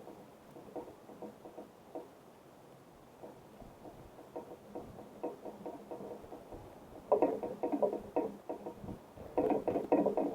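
Rapid, irregular light tapping and knocking close to the microphone, in quick clusters that get much louder in the last few seconds.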